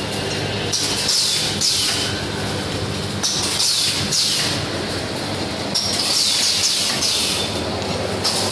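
Agarbatti pouch packing machine running: a steady motor hum under repeated bursts of hiss, about one every second or so, as its pneumatic sealing jaws cycle.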